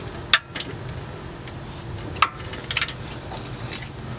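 Metal hand tools clinking against each other and the engine's front, as a handful of sharp separate clicks over a low steady hum.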